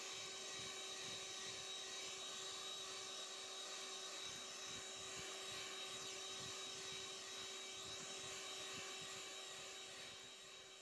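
Electric hand mixer running steadily at speed, its beaters whirring through a creamy cake mixture in a glass bowl: an even motor whine that fades out near the end.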